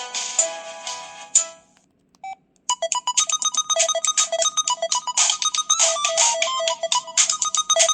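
Preloaded ringtones playing through an LG 220c phone's speaker. One tune of held notes fades out about two seconds in. After a short pause a busier electronic tune starts, with a fast clicking beat and high, repeated melody notes.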